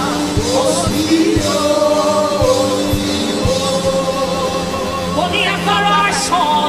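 Gospel worship music: a woman's sung vocal line held over sustained keyboard chords, with soft kick-drum beats in the first few seconds.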